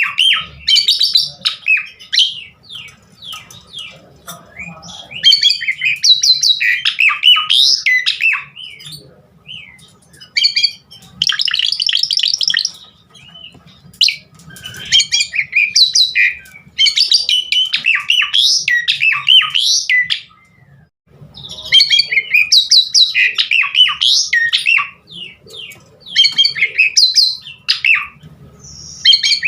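Asian pied starling (jalak suren) singing loudly in a long, varied song of rapid whistles, chirps and harsh chattering notes, in phrases of one to several seconds with brief pauses between; the song is packed with 'isian', borrowed phrases of other birds.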